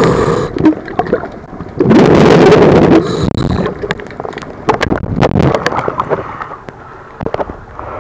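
Water rushing and bubbling over a submerged camera, loud for about a second around two seconds in. After that, as the camera breaks the surface, the sound thins to light splashing with scattered drips and ticks.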